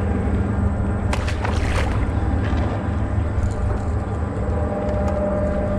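A boat motor running steadily with a low hum and rumble, and a few brief rattles about a second in.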